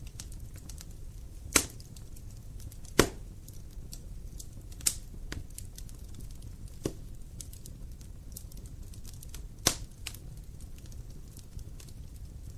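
Wood fire crackling: a low steady rumble with many faint ticks and five sharp pops scattered through, the loudest about three seconds in.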